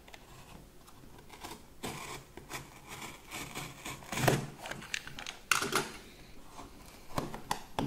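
Utility knife slitting the seals of a cardboard box, with scattered scrapes, rubs and taps of the cardboard being handled; a louder knock about four seconds in.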